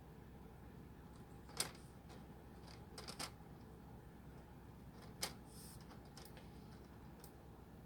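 A few sharp clicks and taps from the plastic casing of an HP laptop being handled and fitted back together: one about a second and a half in, a quick pair near the middle, and one more later.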